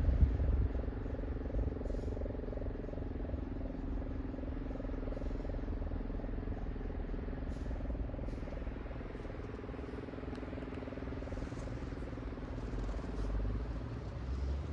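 Distant electric motor siren sounding the 6 p.m. time signal: a steady held tone that slowly fades, over a louder low rumble.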